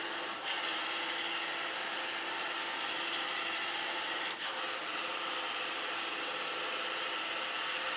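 Roomba robot vacuum running: a steady mechanical whir of its motors and brushes, with two brief breaks in the sound, about half a second in and a little past four seconds in.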